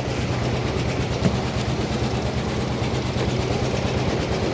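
A steady, low mechanical rumble, like a machine or engine running without a break, with a small knock about a second in.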